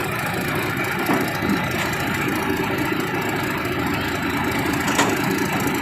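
Combine harvester's diesel engine running steadily, with a single sharp click about five seconds in.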